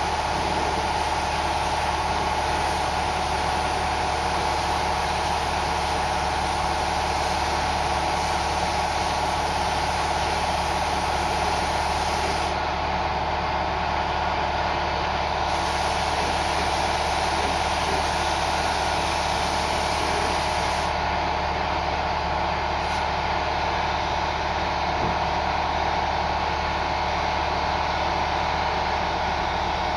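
Steady machine noise: an even hiss with a constant mid-pitched hum and a low drone, holding at the same level throughout.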